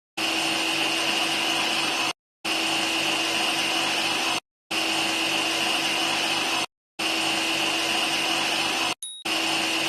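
Simulated horizontal bandsaw running with its blade spinning free before the cut: a steady machine whir with a high whine. It drops out to silence for a moment about every two seconds as the sound loops.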